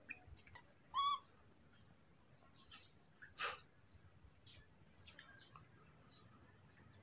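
A single short, high-pitched animal call about a second in, over faint scattered bird chirps and a steady high insect buzz; a brief burst of noise comes near the middle.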